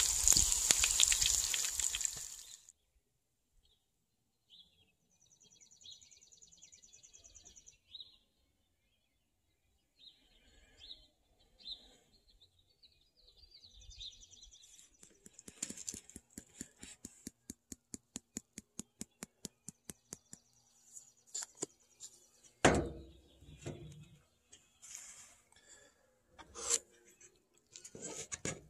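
Bacon and eggs sizzling hard in a cast iron frying pan, cutting off abruptly about two seconds in. After that, songbirds chirp faintly, with a run of quick, even clicks for a few seconds midway and some knocks and clatters near the end.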